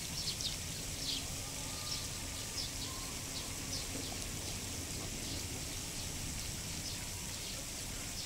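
Outdoor ambience of light rain falling steadily, with short high chirps scattered through, most of them in the first half.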